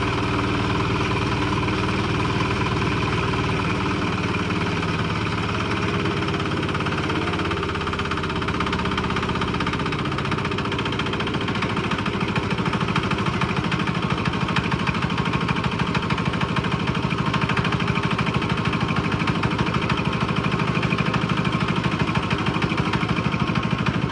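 Diesel engine of a David Bradley walk-behind tractor running after a cold start. About a third of the way in its note drops in pitch, and from about halfway it runs at a slower idle with each firing beat heard distinctly and evenly.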